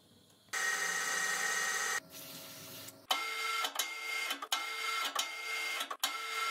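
Metal lathe running while an insert tool cuts grooves into a turned bar, a steady mechanical whine with several fixed tones that starts about half a second in. From about three seconds it turns into a regular ticking, about three a second, over the whine.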